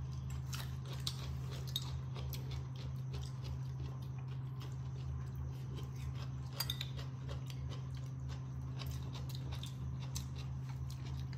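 Steady low hum with scattered light clicks and taps of cutlery and dishes at a meal table, one sharper clink about six and a half seconds in.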